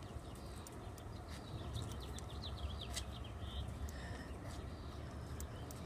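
Outdoor background: a steady low rumble with scattered faint clicks, and a quick run of small bird chirps about two to three seconds in.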